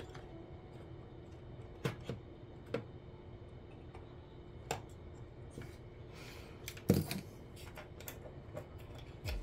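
Scattered small clicks and taps of pliers and thin metal diode legs against the metal contacts and plastic of a solar panel junction box, the loudest about seven seconds in, over a faint steady hum.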